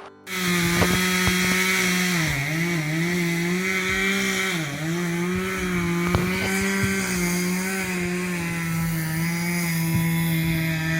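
Chainsaw running at high revs and cutting wood, starting suddenly just after the start; its pitch dips briefly about two and a half seconds in and again near five seconds as it takes load in the cut, then holds steady.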